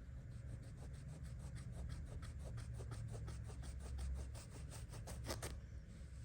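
Rapid, even rubbing or scraping strokes by hand, about five or six a second. They grow stronger toward the end and stop about five and a half seconds in.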